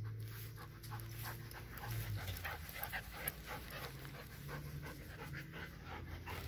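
Old English Sheepdog panting close by: a fast, even run of short breaths.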